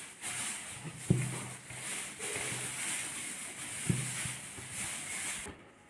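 Fingers mixing rice with chicken curry on a metal plate: a faint, steady rustle, with two soft knocks, one about a second in and one near four seconds.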